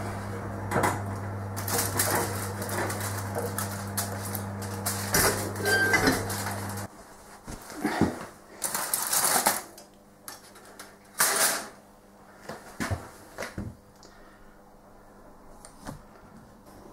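A foil-covered ceramic casserole dish clattering against the oven rack and hob as it is lifted out of the oven, over a steady low hum that stops abruptly about seven seconds in; then aluminium foil crinkling in a few short bursts as it is pulled off the dish.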